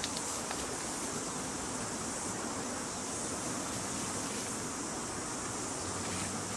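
Steady high-pitched insect chorus in dense bush, running evenly without break.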